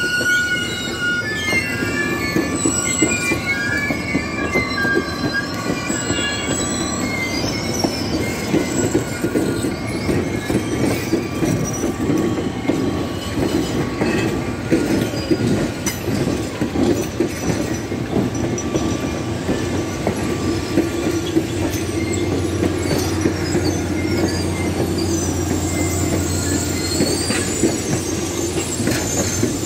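Passenger coaches rolling slowly past at close range, steel wheels clattering over the rail joints with a wavering high-pitched wheel squeal. The squeal is strongest in the first several seconds and returns near the end.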